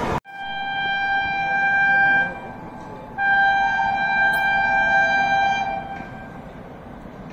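Locomotive horn of an approaching train sounding two long, steady blasts a second apart, the second fading away near the end.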